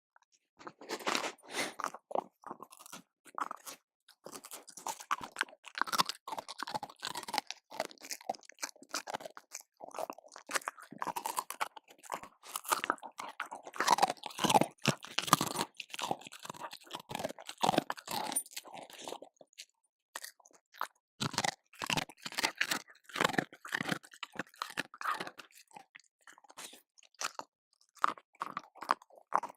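A dog eating, chewing and crunching its food in quick, irregular bites, with a short pause about two thirds of the way through.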